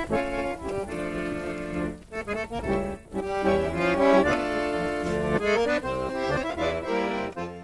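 Accordion music: a folk-style tune played in sustained chords, with brief breaks about two and three seconds in.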